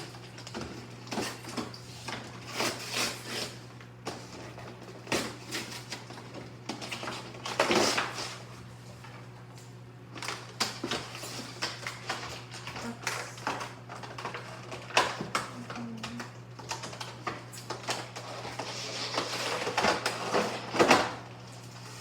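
Packaging of a Pokémon trading card box being opened by hand: irregular rustling, crinkling and tapping, with a steady low hum underneath.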